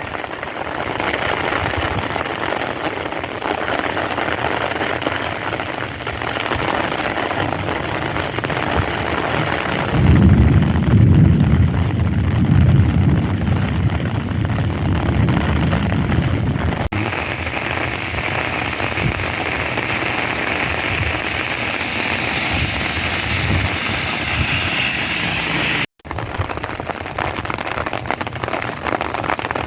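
Heavy rain pouring down as a steady hiss of drops on surfaces. A deep rumble swells under it for several seconds midway. The sound cuts out for an instant near the end.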